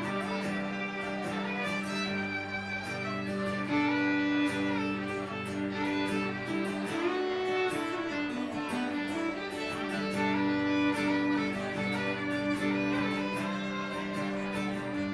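Country fiddle playing an instrumental break over a strummed acoustic guitar, the fiddle holding long notes and sliding between them.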